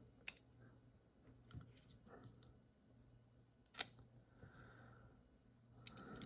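Small metal parts of a TRM Holy Nerd folding knife clicking as they are handled during reassembly: a sharp click just after the start, another a little under four seconds in, and a double click near the end, with faint small taps between.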